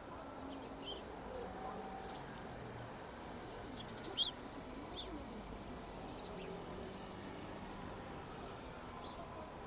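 Outdoor city ambience: a steady low background of street noise and distant voices, with short, high bird chirps now and then, the loudest about four seconds in.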